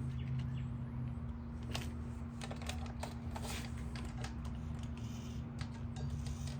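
Scattered light clicks and taps of hands handling the plastic parts of an RC truck, over a steady low hum.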